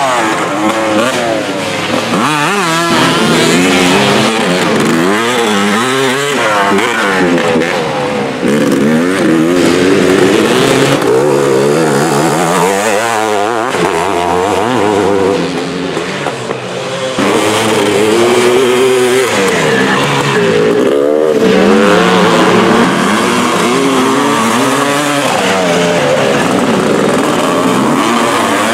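Classic motocross bikes racing on a dirt track, several engines overlapping, their pitch rising and falling again and again as the riders rev out, shift and back off through the corners. The sound drops briefly about two-thirds of the way through before the engines come back up.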